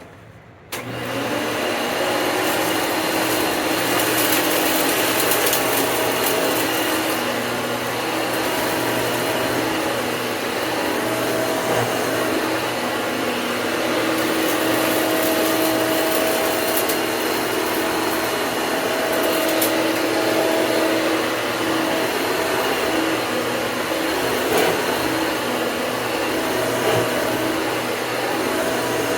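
Hoover upright vacuum cleaner switching on about a second in and running steadily, a constant rushing hum with a wavering motor whine and a few brief crackles during a pickup test.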